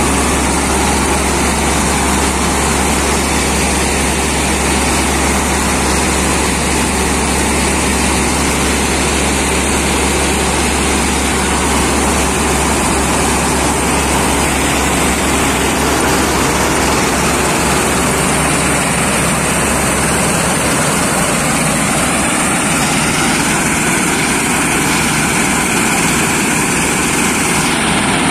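Claas Mega 208 combine harvester running steadily on a test after repair, a dense continuous machine noise; its deep low drone eases about twenty seconds in.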